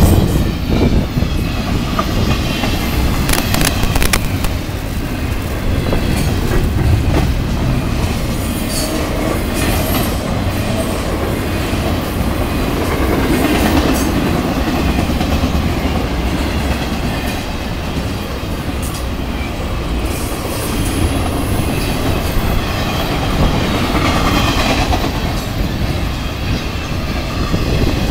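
Double-stack intermodal freight cars rolling steadily past a grade crossing, a continuous rumble of wheels on rail with clickety-clack and sharp clanks now and then.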